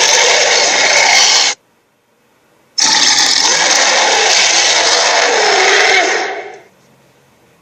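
Titano creature sound effect: two harsh, rasping roars, a short one and then a longer one that fades away.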